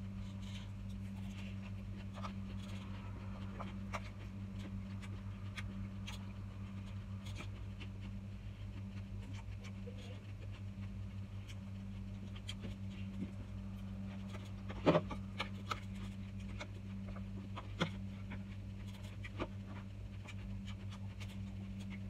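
Eating sounds over a steady low hum: a metal spoon clicks against plastic bowls, with scattered mouth and chewing noises. The sharpest clink comes about fifteen seconds in.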